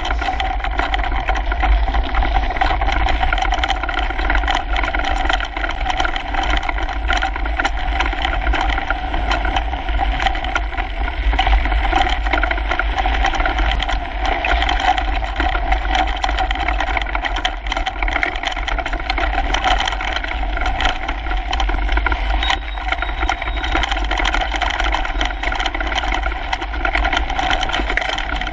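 Kona Coiler mountain bike riding fast down a rough dirt trail, heard from a handlebar-mounted GoPro: steady wind rumble on the microphone with constant rattling and knocking of the bike and camera mount over the bumps.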